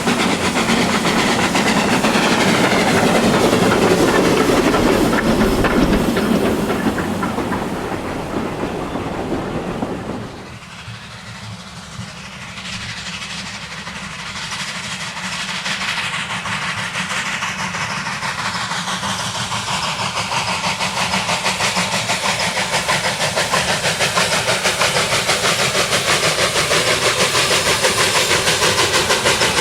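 A train running on track, with clickety-clack and hiss. The sound drops off sharply about ten seconds in, then slowly builds again.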